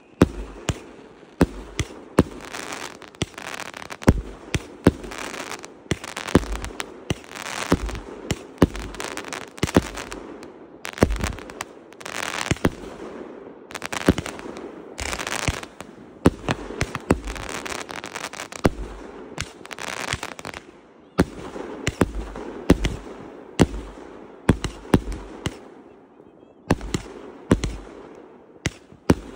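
Fireworks barrage fired close by: a rapid series of sharp bangs from shells launching and bursting, about one or two a second, with crackling stars between them. The firing thins out briefly a few seconds before the end, then picks up again.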